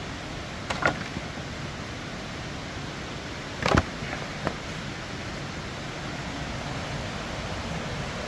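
Steady rushing of river water, broken by three sharp cracks of dry sticks being snapped or knocked together while firewood is gathered. The loudest crack comes about halfway through.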